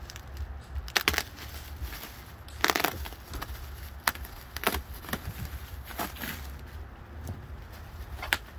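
Bubble wrap crinkling and crackling in about eight sharp, separate crunches, one of them longer, as it is handled and pulled away from a wrapped flat-screen TV. A low steady rumble runs underneath.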